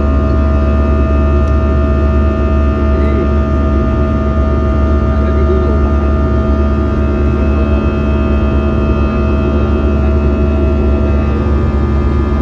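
Steady drone inside an airliner cabin in flight: the jet engines and airflow give a deep rumble with several steady humming tones over it.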